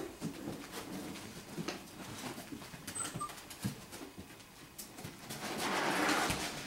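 Five-week-old golden retriever puppies at play: small whimpers and grunts among scattered knocks and scrabbling of paws on plastic toys, with a louder rustling scrape near the end.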